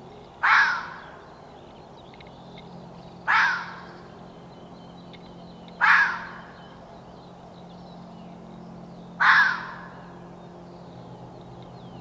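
A harsh animal call, given five times at intervals of about three seconds, each call short and coarse.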